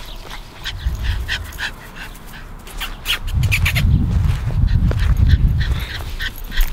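Boston terrier puppy giving many short, high-pitched barks as she romps. A heavy low rumble on the microphone runs from about three to six seconds in.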